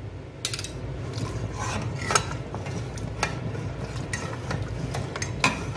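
Metal spoon and ladle clicking and scraping against a steel pot and bowl, about seven sharp knocks, as wheat-flour paste is poured and stirred into simmering mutton curry. A steady low rumble runs underneath.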